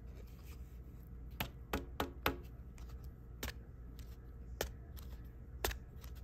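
Sharp plastic clicks and taps from a rigid clear trading-card holder (top loader) handled in the fingers as a card is worked into it. A quick cluster of four comes about one and a half to two and a half seconds in, then single clicks about a second apart.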